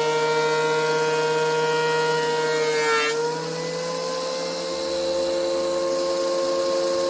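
DeWalt DW735 thickness planer running and planing a board, a steady high whine. About three seconds in its pitch dips briefly and then settles a little higher.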